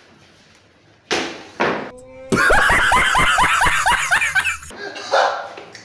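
A man laughing loudly and heartily, a rapid string of 'ha' pulses about four a second, starting a little over two seconds in and lasting about two seconds. A couple of short hissing bursts come just before it.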